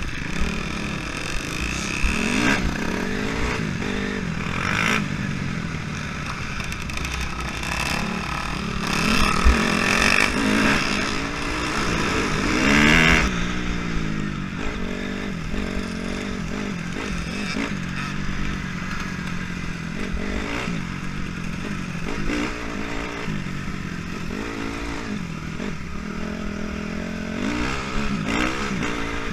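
Honda CRF250R dirt bike's single-cylinder four-stroke engine being ridden off-road, revving up and down over and over, with the loudest pulls about ten and thirteen seconds in.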